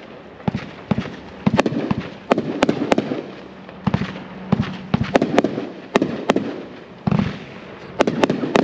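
A 20-shot 500-gram consumer firework cake (Winda Fireworks 'Carolina Reaper') firing shot after shot, with sharp cracks and bangs in quick clusters about every half-second to second as the shells burst.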